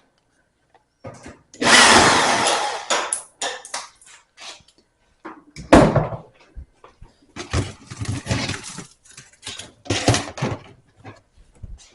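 Screws being taken out of a dryer's top panel: a noisy burst lasting about a second, then a sharp knock about six seconds in and clusters of clicks and rattles of tool on metal panel.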